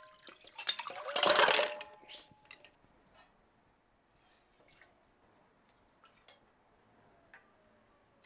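Water from a kitchen tap splashing in a sink for about a second, then quiet with a few light clicks of kitchenware.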